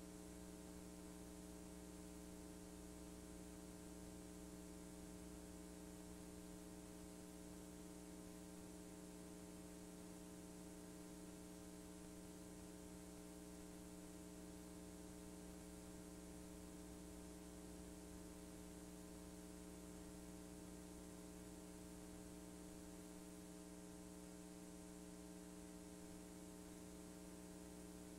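Near silence with a faint, steady electrical hum of several unchanging tones over a soft hiss: the noise floor of a VHS tape played back with no programme sound.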